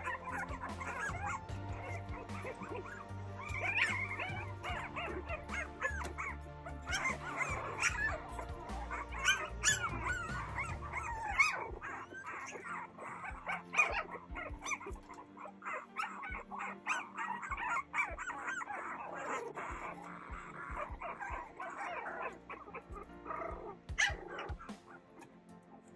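A litter of young Boston Terrier puppies whimpering, yipping and squeaking over one another as they play, with background music underneath.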